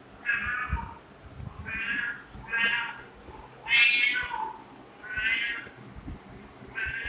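Domestic cat meowing over and over: about six separate meows of roughly half a second each, the loudest about four seconds in.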